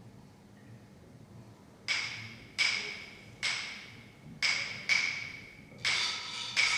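After a hush of about two seconds, a high-pitched percussion instrument is struck over and over on the same note in an uneven rhythm, each stroke ringing briefly and fading, as a piece begins. Near the end, further pitched notes join in.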